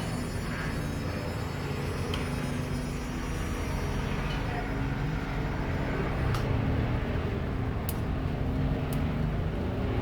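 Yamaha Factor motorcycle's single-cylinder four-stroke engine running steadily through an aftermarket Roncar Aluminium RS exhaust, with a few sharp clicks in the second half.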